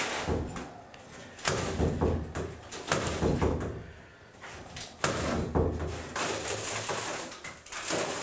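Old fiberglass tub-surround panel being pried and torn off the wall by hand: irregular cracks, scrapes and knocks as the panel flexes and breaks away, with a longer stretch of rough tearing in the second half.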